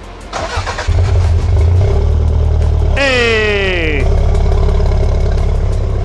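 Toyota MR2 Turbo's turbocharged four-cylinder engine cranked by the starter, catching within about a second and then running steadily, the no-start cured. About three seconds in, a loud sound slides down in pitch for about a second over the running engine.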